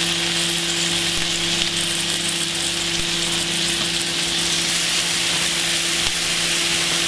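Back bacon rashers sizzling steadily in a hot, lightly oiled frying pan as more rashers are laid in; the even sizzle is the sign of a pan hot enough for frying. A steady low hum runs underneath.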